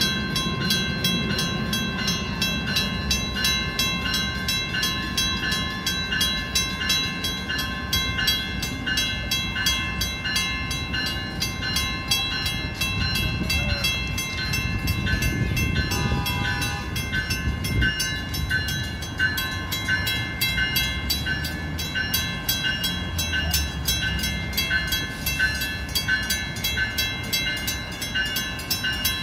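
Level-crossing warning bells ringing in a quick, steady rhythm over the low rumble of a Brightline Siemens Charger SCB-40 diesel locomotive creeping slowly up to the crossing. A short tone sounds for about a second, about halfway through.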